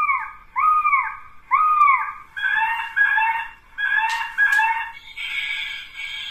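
Leaven LS-2020B bioacoustic bird repeller playing its recorded bird cries through its speaker, the imitated predator and alarm calls meant to scare pest birds away. It begins with three arched, falling calls about a second apart, then four shorter calls, and from about five seconds in a harsher, noisier cry.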